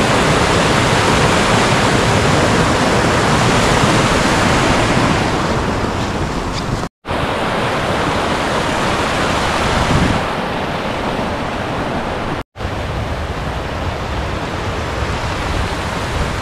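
Mountain stream rushing over rocks, a steady loud rush of water. It drops out briefly twice, about seven and twelve seconds in, and runs slightly duller in the last part.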